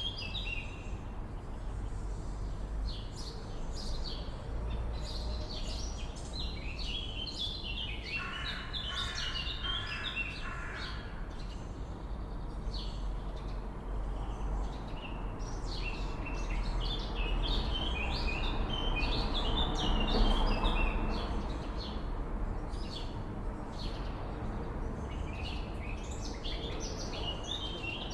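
Swallows twittering in a continuous chorus of quick, high chirps over a steady low background rumble, with a short run of lower repeated calls about a third of the way in and a broad low swell peaking about two-thirds through.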